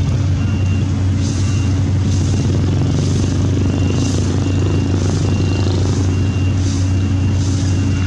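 Heavy diesel engines of an asphalt paver and a dump truck running steadily. Over them, a back-up alarm sounds evenly spaced high beeps.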